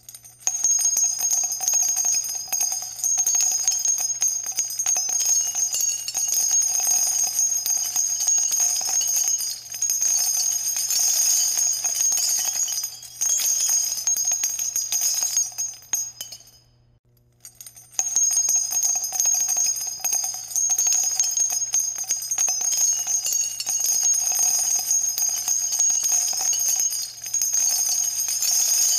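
Background music track of continuously shaken jingle bells, bright and busy, that drops out for about a second and a half a little past the middle before resuming.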